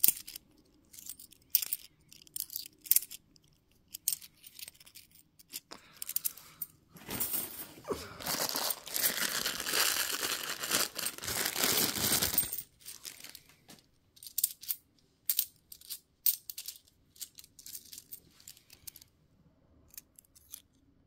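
50p coins clinking and clicking against each other as they are handled and sorted one by one. Around the middle comes a five-second stretch of denser rattling and rustling.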